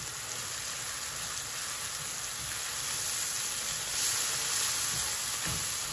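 Sliced onions and tomatoes sizzling as they fry in oil in a non-stick frying pan, stirred with a slotted spatula. The sizzle gets a little louder about four seconds in.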